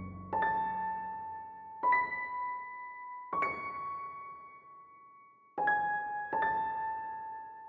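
Background music: a slow, sparse electric-piano melody, five single sustained notes struck one after another, each ringing until the next.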